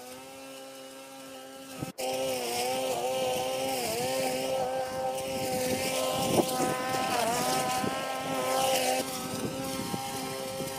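Cordless electric grass trimmer running with a steady whine. The pitch dips briefly each time the nylon blades bite into the grass, and a hiss of cutting grass joins in. The sound jumps louder about two seconds in.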